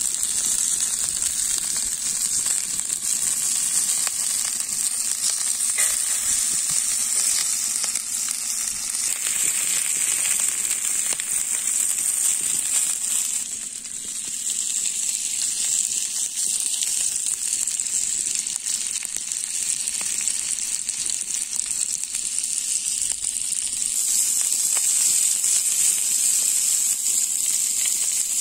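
Marinated chicken tikka skewers with onion and capsicum sizzling on a hot flat iron griddle, a steady dense hiss full of fine crackles. It dips briefly about halfway through and grows louder again near the end.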